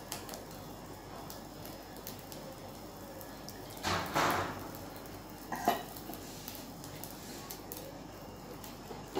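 Steel kitchen vessels handled at the stove: a brief metal clatter about four seconds in, then a sharp ringing clink as a small steel pot is set down a second and a half later.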